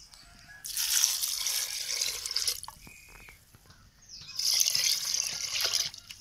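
Water poured from a steel tumbler into a clay pot of dal and chopped vegetables, splashing in two spells of about two seconds each, as water is added to cook the dal.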